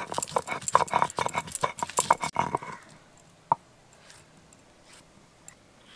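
Stone roller rocked rapidly over a grooved stone grinding slab (sil-nora), crushing dried red chillies: a quick run of stone-on-stone knocks and grinding for about two and a half seconds, then a single sharp knock a second later.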